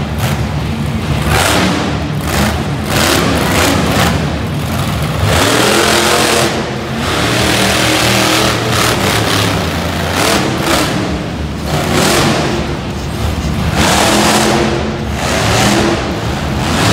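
Monster truck's supercharged V8 revving hard as the truck drives across the dirt, the engine surging up and falling back again and again, with a long sustained run in the middle.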